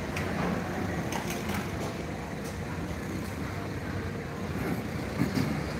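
City street ambience heard from above: a steady hum of passing traffic, with scattered small clicks and a short louder knock about five seconds in.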